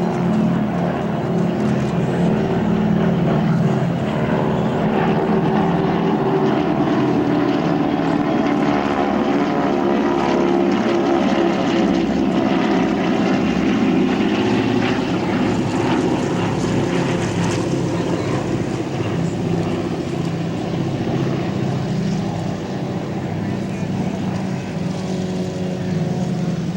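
Propeller-driven T-6 Texan trainer flying by, its Pratt & Whitney R-1340 Wasp radial engine running loudly and steadily, the engine note gliding slightly in pitch through the middle as the aircraft moves past.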